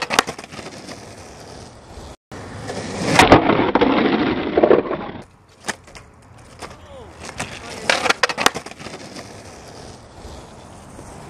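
Skateboard on a curb and rough asphalt: sharp clacks of the board popping and its wheels and trucks hitting the curb near the start and again about eight seconds in, with wheels rolling over the asphalt between. A louder stretch of rough noise fills the middle two seconds.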